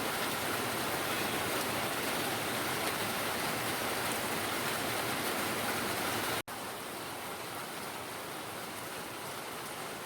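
Steady rain falling, an even hiss of many drops. It cuts out for an instant about six and a half seconds in, then goes on a little quieter.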